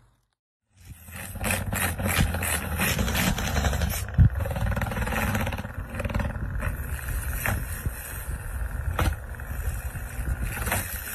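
Small desk fan's spinning blades buzzing and rattling against a cat's open mouth, a steady engine-like buzz with sharp ticks every few seconds. It begins abruptly just under a second in.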